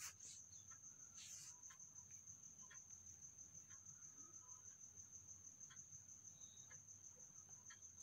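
Near silence, with a faint, high-pitched insect trill pulsing steadily throughout and a few faint ticks.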